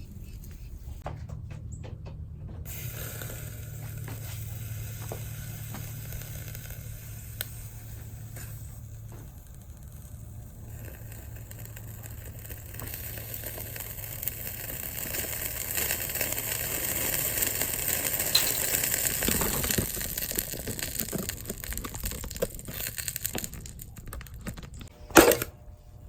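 Sunbeam electric fan heater running, a low steady hum with a rushing hiss that swells and then fades, followed by one loud sharp impact near the end.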